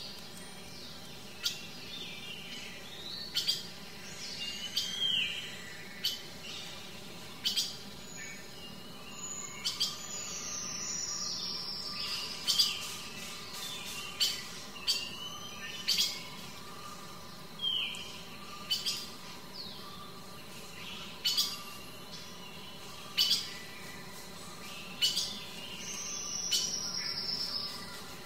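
Birds chirping: short sharp calls about once a second, with a couple of longer falling whistled calls.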